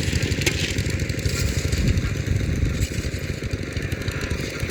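A small engine running steadily, with a rough, rapid pulsing low down and a hiss above it.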